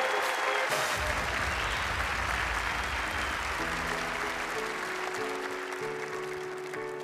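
Studio audience applauding just after a quick-change reveal, fading over several seconds, over backing music. About halfway through, the music turns to a slower passage of long held notes.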